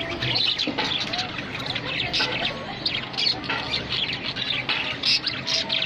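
Several budgerigars chattering and chirping in dense, rapid, high-pitched bursts of overlapping short calls.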